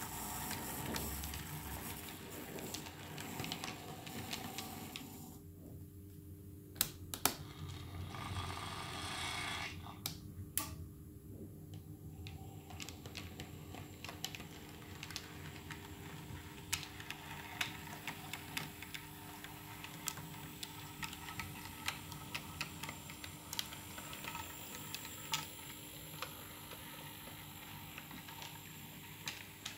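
HO-scale model steam locomotive rolling along the layout's track, its wheels clicking irregularly over rail joints and turnouts, with two sharper clicks about seven seconds in, over a steady faint hum.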